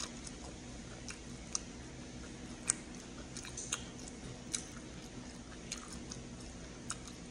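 A person chewing a mouthful of lettuce taco: about a dozen short, scattered crunches of the lettuce leaves between bites.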